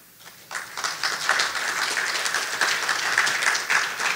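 Audience applauding, the clapping starting about half a second in and holding steady.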